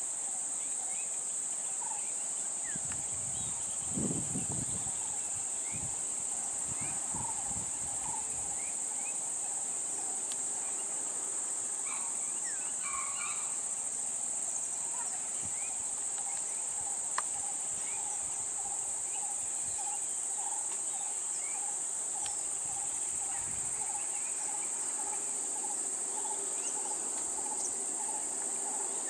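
Steady high-pitched insect chorus, one unbroken buzz, with faint short chirps scattered through it. A brief low rumble comes about three to five seconds in.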